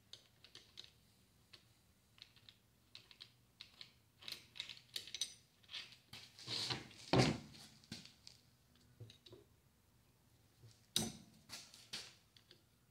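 Small metal clicks and taps of hand tools working on the housing of a Milwaukee 4094 drill drive motor as it is taken apart, with two louder knocks, about seven seconds in and again about eleven seconds in.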